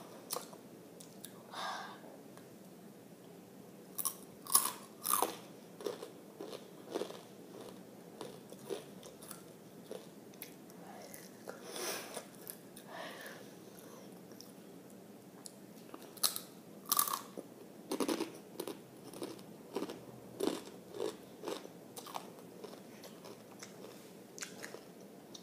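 Close-up crunching and chewing of rolled tortilla chips (Takis), in irregular bites. The loudest crunches come about four to five seconds in and again around sixteen to seventeen seconds.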